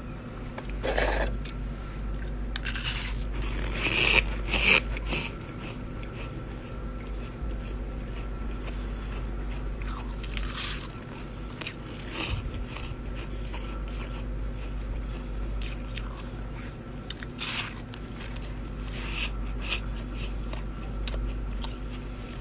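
Chest-freezer frost ice being bitten and chewed: a run of crisp crunches and scrapes, loudest about four seconds in, with further crunches scattered through the rest.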